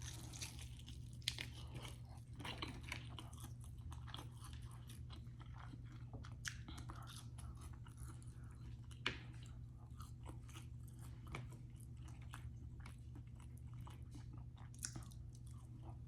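Close-up chewing and crunching of crispy fried food, with a few sharp bites standing out over a steady low hum.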